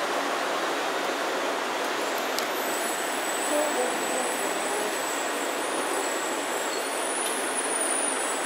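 Airport people-mover train running along its guideway and slowing into a station, heard from inside the car as a steady rumble and hiss, with a faint high whine over it from about two seconds in.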